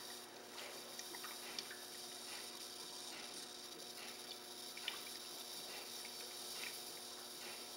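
HHO (oxyhydrogen) electrolysis cell running, giving a faint steady hiss with scattered small bubbling pops and ticks as it makes gas.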